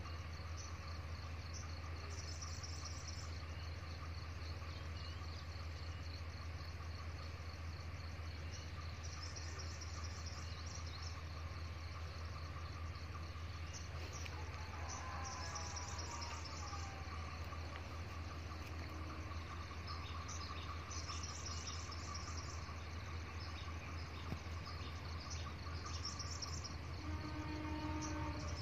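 Crickets chirring steadily over a low steady hum, with a short bird call about halfway. A faint steady tone comes in near the end.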